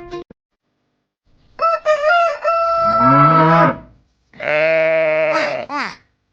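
Farm animal calls in turn: a long call starting about a second and a half in, then a wavering bleat, each about two seconds long.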